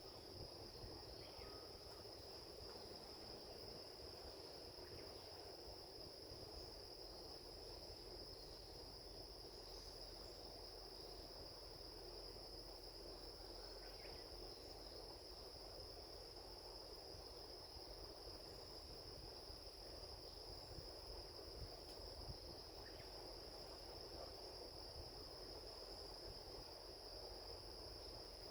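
Faint chorus of crickets: a steady, unbroken high trill over a low, even rushing background, with a few faint short chirps.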